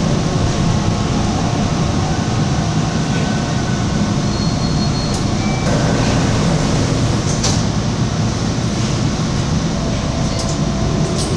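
Toronto subway train running, heard from inside the car as it leaves a station platform and enters the tunnel: steady low running noise of wheels on rail, with a few brief faint whining tones and a couple of faint clicks.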